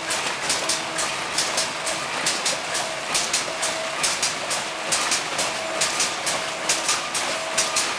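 Several vertical form-fill-seal snack pouch packing machines running together: a fast, rhythmic clatter of clicks and clacks, with a short hum repeating about once a second.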